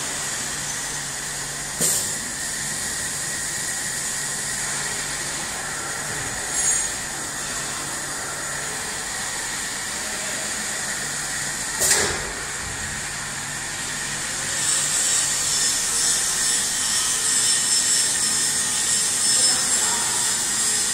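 Stainless steel keg washer-filler machine running: a steady hiss over a low hum, with sharp clicks about 2, 7 and 12 seconds in. The hiss grows louder and rougher from about 15 seconds.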